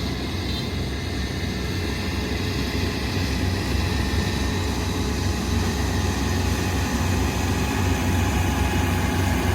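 Kubota ER 470 combine harvester's diesel engine running steadily, growing slightly louder toward the end.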